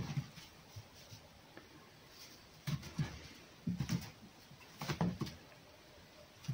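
Fox scuffling about its straw-floored pen: short clusters of thumps and rustling a few times, with quiet between them.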